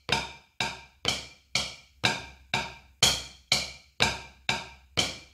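Wooden drumsticks striking a rubber drum practice pad on a snare stand in a steady, even beat of single strokes, about two a second, each a sharp tap with a brief ringing tone.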